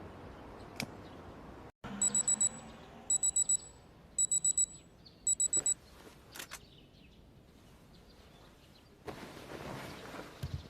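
Digital alarm clock beeping: four rapid groups of four high electronic beeps, about a second apart, then it stops.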